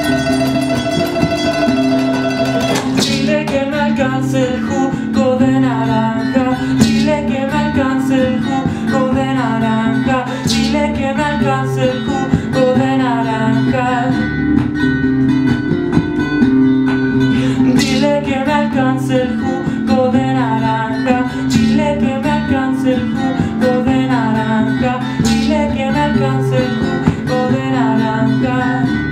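Live acoustic guitar song, the guitar strummed steadily under a winding melody line. A long held note opens it, and a sharp accent comes round about every three and a half seconds.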